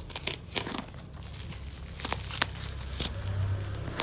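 Parcel packaging crinkling and crackling as it is handled and opened, in scattered short, sharp rustles.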